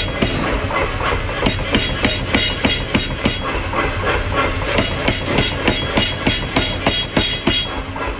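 Power hammer pounding a red-hot steel bar in fast, even blows, about three a second.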